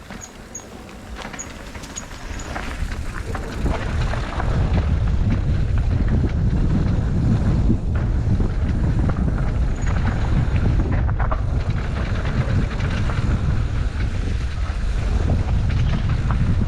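Wind buffeting the microphone of a rider on an electric mountain bike, building over the first four seconds as the bike picks up speed and then staying steady.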